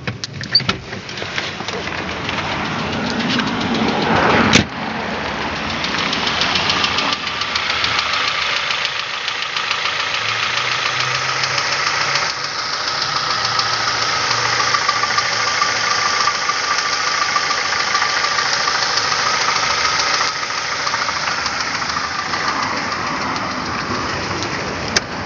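Nissan Almera 1.8 four-cylinder petrol engine running with a heavy, rapid knock, getting louder over the first few seconds with a sharp bang about four and a half seconds in, then running steadily. The engine has a terrible knock and is losing oil: the dipstick is dry soon after topping up.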